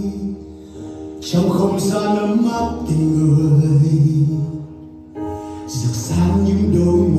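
Pop song music, a sustained melody over a steady low bass; it drops quieter twice, about half a second in and again about five seconds in.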